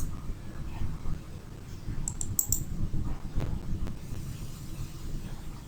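Computer keyboard keys tapped a few times, over a steady low background hum.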